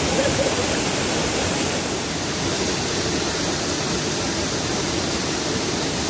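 Waterfall pouring into a rocky plunge pool: a steady, unbroken rush of falling water.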